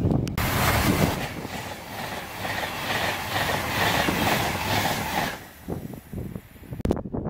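Passenger train passing close at speed: a loud rush of air and wheel noise with a rhythmic clatter of wheels over rail joints, which starts about half a second in and dies away after about five seconds.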